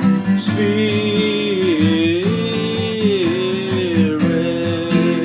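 Acoustic guitar strumming under a solo voice singing one long, wavering held note in a slow hymn.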